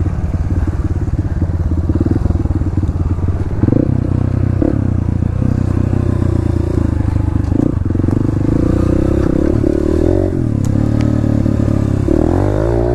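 Dirt bike engine running under throttle on a rough trail, its pitch rising and falling with the revs, most in the second half. A few short knocks sound as the bike jolts over the ground.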